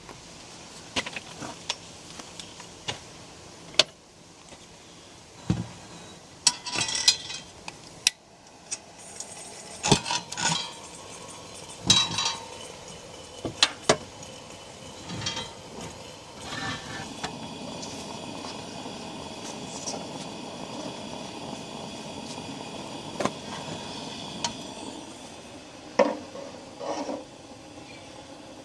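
Cookware and utensils being handled, with repeated clinks and knocks. A steady even sound runs underneath from about two-thirds of the way in.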